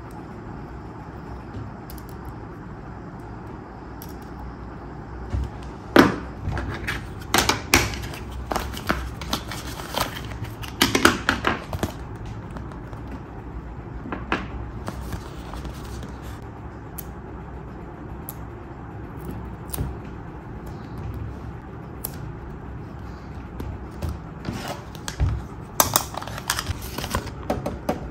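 Plastic toy parts and a paper sticker sheet being handled: scattered clicks, taps and rustles, busiest between about six and twelve seconds in and again near the end.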